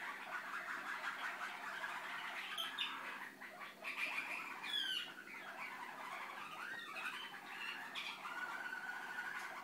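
Malinois (Waterslager) song canary singing a continuous song of rolling trills and held tones, with a falling whistled glide about halfway through.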